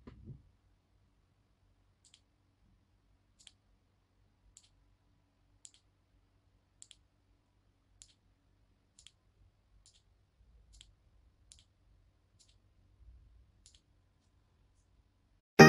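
Faint single button clicks, about a dozen at roughly one a second, from a Mirfak Moin L1 LED cube light being pressed repeatedly to step through its light levels. Music comes in at the very end.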